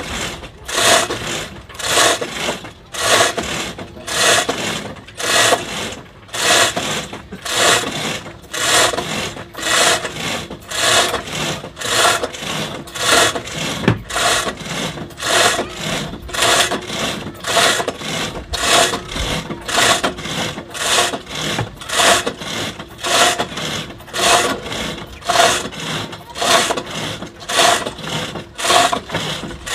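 Pulley tackle (katrol) creaking and rasping under load as the hull is hauled by hand, in a fast, even rhythm of repeated strokes.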